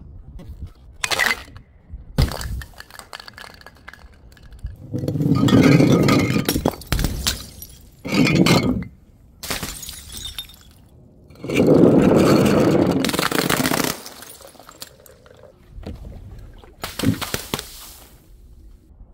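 Glass bottles breaking and shattering, with shards clinking. There are a couple of short knocks, then several longer crashes, the longest lasting two to three seconds.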